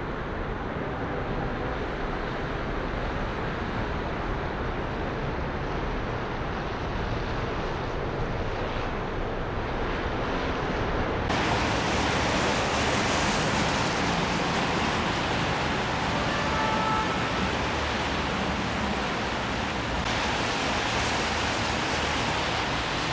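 Steady rushing outdoor noise with no distinct events; it turns brighter and a little louder about eleven seconds in.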